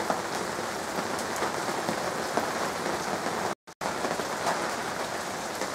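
Steady rain falling on the trees and yard, an even hiss with scattered drops. The sound cuts out for a moment about two-thirds of the way through, then the rain resumes.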